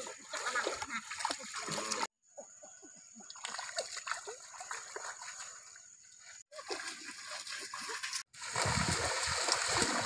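Feet splashing through shallow stream water as people wade and run. The splashing is loud at the start and end, with a quieter stretch in between after it cuts off abruptly.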